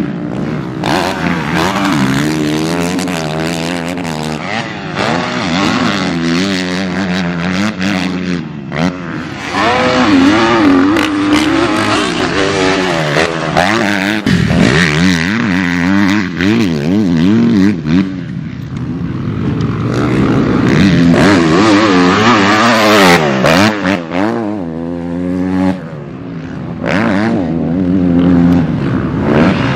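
Pro Circuit Kawasaki KX250F single-cylinder four-stroke motocross bike racing on a dirt track. The engine revs up and drops back over and over as the rider shifts and rolls off for turns and jumps, with dirt being thrown from the rear tyre.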